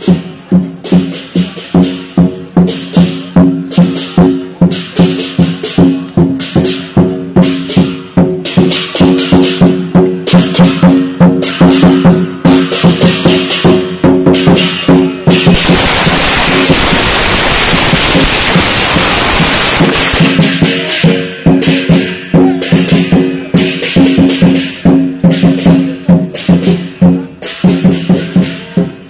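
Chinese dragon-dance percussion: a large drum beaten in a fast steady rhythm with metallic crashes over a low ringing tone. About halfway through the beat turns into a dense, continuous roll for several seconds, then the rhythm resumes.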